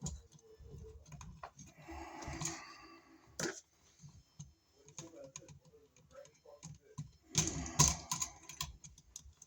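Irregular small clicks, taps and scraping of hand work with a screwdriver and copper wire on a wall receptacle's screw terminals. There is a sharper click about a third of the way in and a busy run of clicks near the end.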